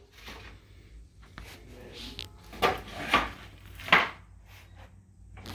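Knocks and clatter of an old wagon and its wooden wheel spacers being handled, with three louder knocks in the second half.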